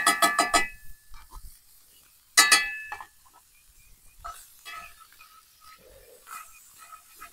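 Metal utensil clinking against a black cast iron skillet over a campfire: a quick run of ringing taps at the start and another about two and a half seconds in, then quieter scraping and clicks as the meat is stirred.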